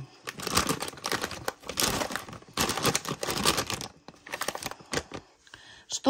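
Plastic packet of granular fertilizer crinkling as it is handled and turned over close to the microphone, dying down near the end.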